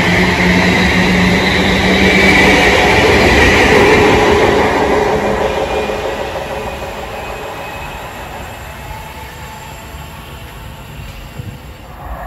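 A pair of Class 350 Desiro electric multiple units running along the platform and drawing away, with a high whine over the rail noise. The sound is loud for the first few seconds, then fades steadily as the train recedes.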